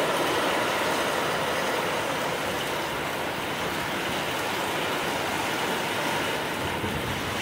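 Heavy rain pouring steadily onto the ground and trees during a tropical storm.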